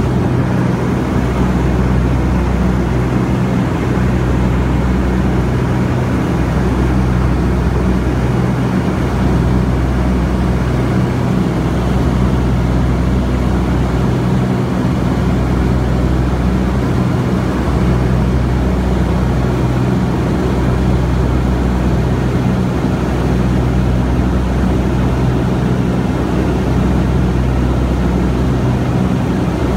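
Steady drone of a propeller airplane's piston engines in cruise, heard from inside the cabin, with a low throb that swells and fades every two to three seconds.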